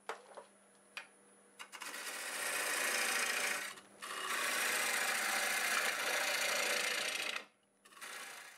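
Bowl gouge cutting the inside of a spinning bowl of wet green cherry wood on a lathe, peeling off long shavings: a few light taps, then two long continuous cuts of about two and three seconds with a brief break between, and a shorter cut near the end, over a steady low hum.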